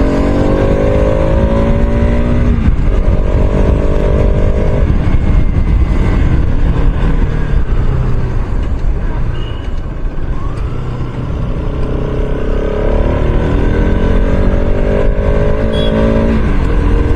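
Bajaj Pulsar RS200 motorcycle engine under way, climbing in pitch as the bike accelerates in the first few seconds and again near the end, easing off in between, under heavy wind rumble on the microphone.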